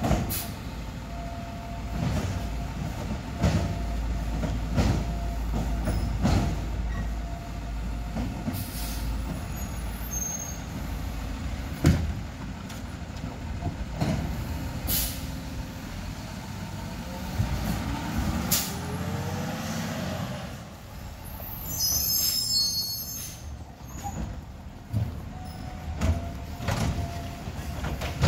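Automated side-loading recycling truck at work: its diesel engine runs steadily, broken by sharp knocks and bangs, a rising hydraulic whine and a short air-brake hiss as it stops and its arm lifts a recycling cart.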